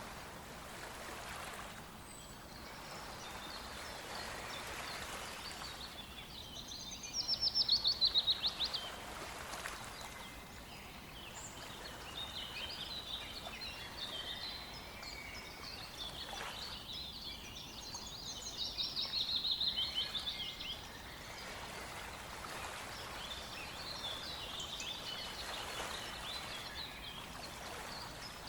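Songbirds singing over a steady rush of river water. Twice, a loud song of fast repeated notes that drop in pitch lasts about two seconds, with softer chirps and calls in between.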